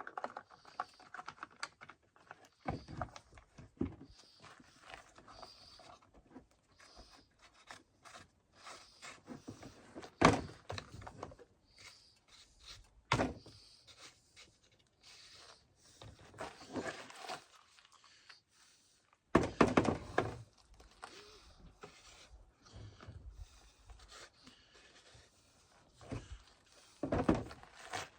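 Scattered knocks, clicks and clunks of a chainsaw being handled as its side cover is fitted back on over the bar and chain. The loudest clunks come about ten seconds in, at about thirteen seconds, in a cluster around twenty seconds and near the end.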